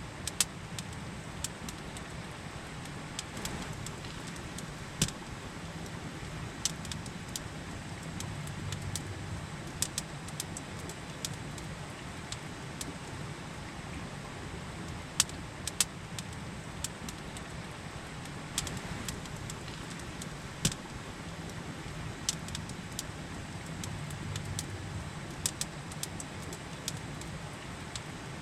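Campfire crackling, with irregular sharp pops of burning wood over the steady rush of a river.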